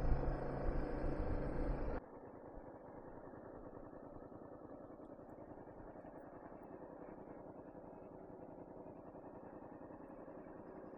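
Honda VTR250 V-twin engine running under way, with wind buffeting the microphone. About two seconds in the sound drops abruptly to a quieter, muffled, steady engine note with an even pulse.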